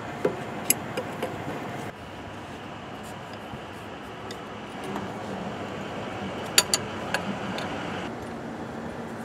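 Hand tools clinking and clicking against the brass fittings of a truck air-brake governor, in a few sharp metallic taps in the first second and again around two-thirds of the way through, over a steady background noise.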